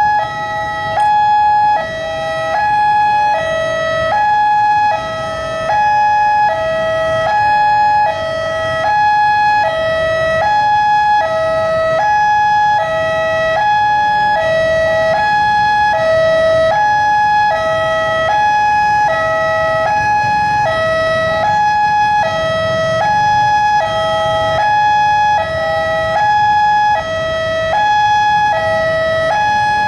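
Railway level-crossing electronic warning alarm sounding without a break, switching between a higher and a lower tone about every second. Road traffic rumbles underneath.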